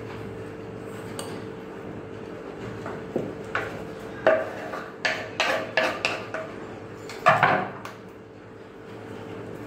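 A wire whisk and a wooden chopping board clinking and knocking against a glass mixing bowl as chopped coriander is scraped off the board into thick batter: a run of sharp knocks in the second half, the loudest near the end, over a steady low hum.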